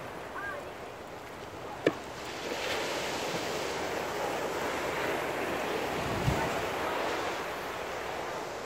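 Small Mediterranean waves breaking and washing onto a sandy, pebbly shore: a steady surf hiss, with some wind on the microphone. A sharp click about two seconds in and a soft low thump near six seconds.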